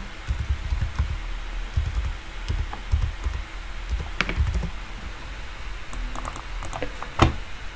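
Computer keyboard typing in short, irregular runs of keystrokes, with a sharper, louder click near the end.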